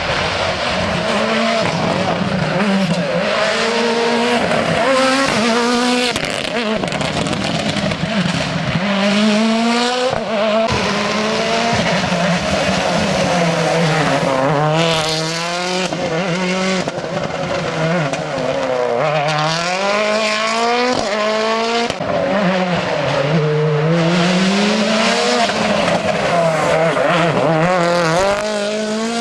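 Rally car engine at full throttle through a special stage, its pitch climbing repeatedly and dropping sharply at each gear change or lift.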